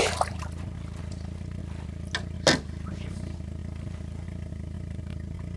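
Boat's outboard motor idling, a steady low hum. Two brief sharp sounds come a little after two seconds in, the second louder.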